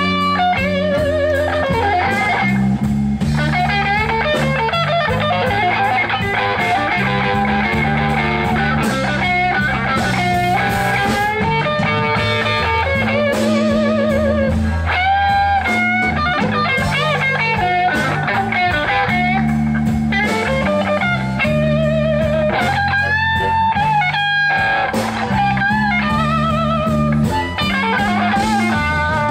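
Live blues band: an electric guitar plays a lead with bent notes over bass and drums.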